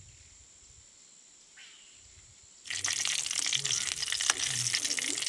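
Quiet for the first two and a half seconds, then dry red chillies suddenly start sizzling and crackling in hot oil in a metal kadai as they are stirred with a steel spoon.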